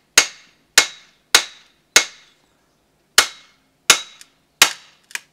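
Hard, sharp blows struck one after another on the back of an axe head to split wood, each with a short metallic ring. There are eight strikes, roughly two a second, with a pause of about a second midway.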